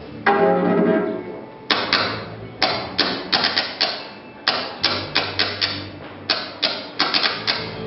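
Electronic music from a laptop-and-amplifier setup: a synth chord rings out, then a sparse, clattering beat of sharp noisy hits in uneven groups over low bass notes.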